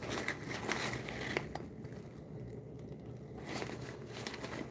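Leather handbag being handled, with rustling and small clicks from its metal hardware, in two spells: one in the first second and a half and another near the end.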